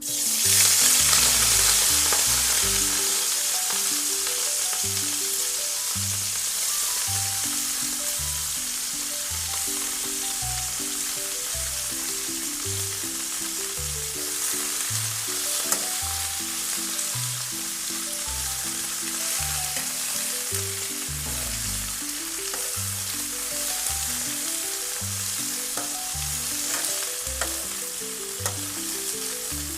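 Food dropped into hot oil and frying: a loud sizzle that starts suddenly and eases slightly, then keeps going steadily. A gentle background melody plays throughout.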